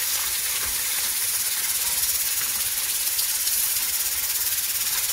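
Sliced onions sizzling as they are tipped into hot coconut oil in an aluminium pan: a steady frying hiss.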